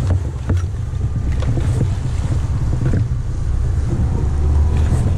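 Small outboard motor running as an inflatable boat travels over choppy sea, with wind buffeting the microphone and scattered short knocks from the hull meeting the waves.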